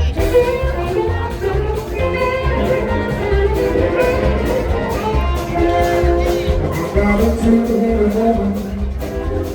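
Live blues band playing: a melodic lead line of held notes over bass and a steady drum beat.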